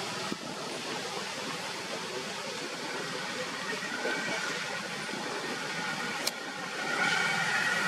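Steady outdoor background noise with a single sharp click about six seconds in.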